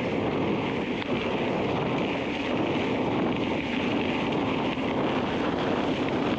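Steady wind rush over the microphone of a bike-mounted camera, mixed with the hum of wide plus-size tyres rolling fast on a hard-packed gravel road, as the bike runs downhill at speed.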